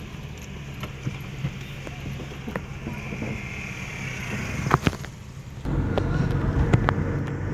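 Car engine running, heard from inside the cabin, with a few sharp clicks shortly before five seconds in. About two-thirds of the way through, the engine and road noise get clearly louder as the car pulls away.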